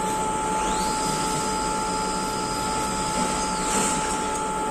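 Vertical machining centre's axis servo drive whining as the machine traverses. The pitch rises as the axis speeds up about half a second in, holds steady, then falls as it slows to a stop near the end, over the machine's steady electrical hum.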